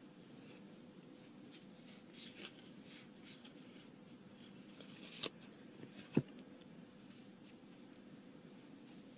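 Flesh and Blood trading cards being leafed through by hand: soft swishes and clicks of card sliding against card, in scattered bursts, with a sharper knock about six seconds in.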